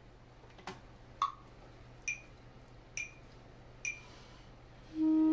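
A faint click, then a metronome count-in of four short beeps about a second apart, the first lower in pitch than the other three. Just before the end a clarinet comes in on a long held low note.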